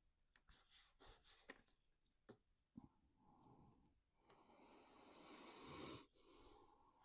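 Near silence with faint handling noises: a few light taps, then a soft rustling hiss that swells and stops suddenly near the end.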